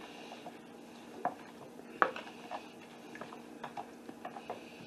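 Metal utensil clicking and scraping against a plastic container while stirring a wet marinade, with two sharper knocks about one and two seconds in and lighter ticks after.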